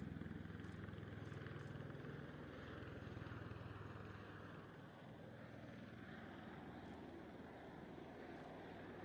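Faint, steady drone of a V-22 Osprey tiltrotor's engines and rotors running, with a low hum that softens a little partway through.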